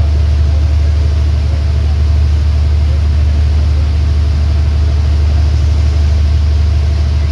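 A boat's engine running steadily while the boat is under way: a loud, low, even drone.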